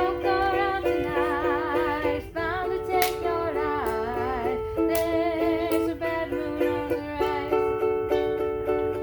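Background music led by ukulele, with held chords and a wavering melody line above them.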